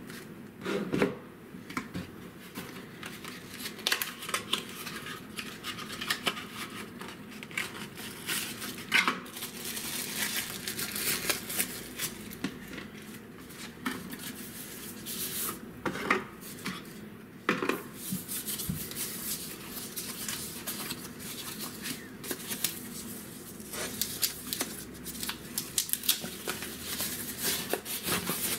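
Cardboard packaging handled by hand on a desk: boxes slid apart, tapped and set down with scattered sharp knocks and scrapes. A soft protective wrap rustles as it is pulled off, most of all near the end.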